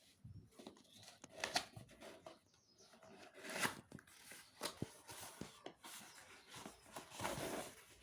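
Hands handling and opening a smartphone's retail box: rustling and tearing of packaging, with scattered taps and clicks.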